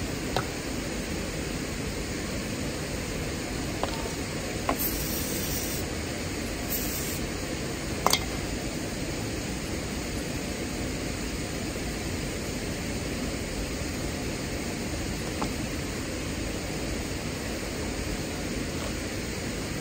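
Two short hisses from an aerosol spray can, about five and seven seconds in, among small metallic clicks of hand tools on a small engine, with a sharper clink just after the second hiss. A steady rush of flowing water runs underneath.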